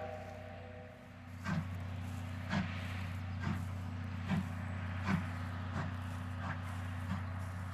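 Steam locomotive pulling away with its train: about eight exhaust chuffs that come quicker as it gathers speed, over a steady low hum.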